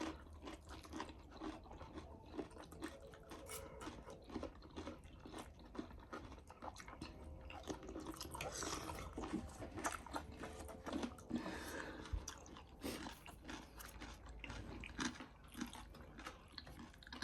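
A person chewing and biting crunchy food, with many small, irregular crunches and mouth sounds.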